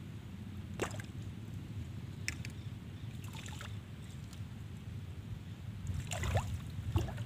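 Steady low outdoor rumble with a few short, sharp sounds scattered through it.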